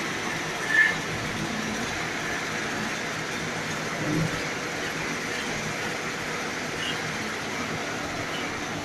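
Steady running noise of a breakfast-cereal processing line: mesh belt conveyors and a dryer. A brief high squeak comes about a second in and a dull knock around four seconds.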